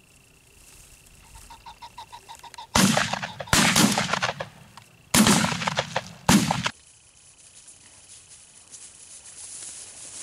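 A bird calls in a quick run of repeated clucking notes, then a shotgun fires four loud shots in two pairs over about three and a half seconds, each with a ringing tail.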